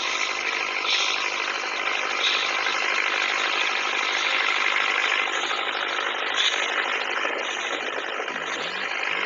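Toy pop-pop steam boat (otok-otok boat) running, its small boiler engine making a fast, steady putt-putting rattle.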